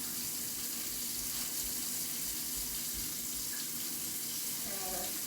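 Kitchen sink tap running in a steady stream.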